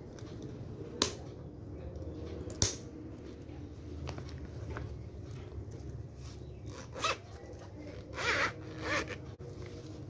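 Two sharp metallic clicks from the diary's metal ring-binder rings, then the zipper of the fabric diary cover being pulled closed in three short runs near the end.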